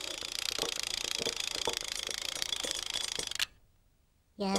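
Cartoon sound of a wind-up beater mixing batter in a bowl: a steady hissing whirr with a faint click about twice a second, which cuts off suddenly about three and a half seconds in. A short pitched sound starts right at the end.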